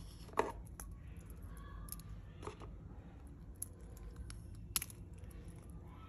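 Metal Reverso-style folding clasp on a leather watch strap clicking as it is handled and folded: a handful of short, sharp clicks, the loudest about half a second in, others near two and a half and five seconds.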